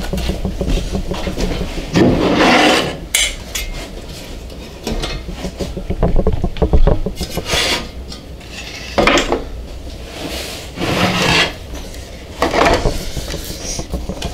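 Oak strips being handled and slid across a table saw's metal top and a wooden crosscut sled: a series of scraping, rubbing swishes, each a second or less, with small knocks between.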